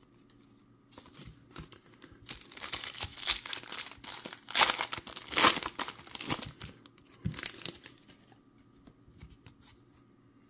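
Foil wrapper of a baseball card pack crinkling and tearing as it is opened by hand, in a run of irregular crackles loudest around the middle, dying down to faint handling near the end.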